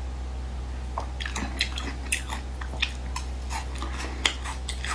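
Close-up chewing of chewy beef-skin strips: short wet mouth clicks and smacks, about two or three a second, starting about a second in.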